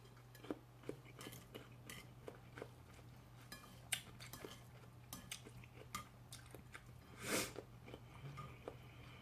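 Close-miked chewing and wet mouth clicks of a person eating spicy noodles, with many small scattered clicks and one louder, noisier sound about seven seconds in.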